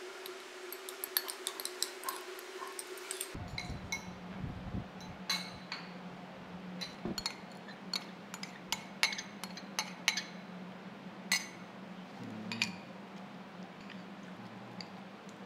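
A metal spoon clinking and scraping against a ceramic bowl while mixing food, in irregular light clinks. A steady low hum runs behind it and drops in pitch about three seconds in.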